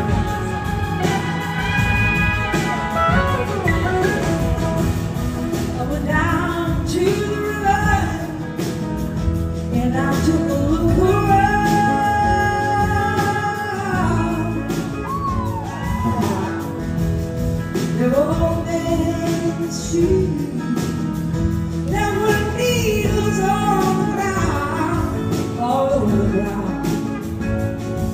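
Live blues-rock band playing, with electric guitar and a horn section of trumpet, saxophone and trombone, and a woman singing lead over it.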